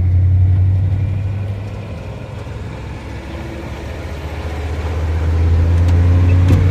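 A loud, steady low rumble like a motor vehicle's running engine. It dips in level around the middle and swells again toward the end.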